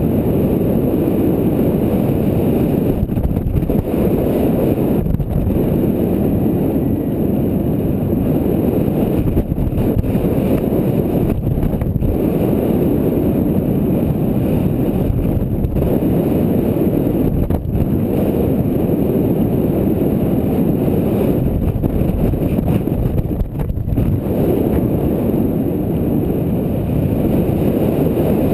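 Loud, steady wind buffeting on a GoPro's microphone during paraglider flight, a deep rushing rumble with a few brief lulls.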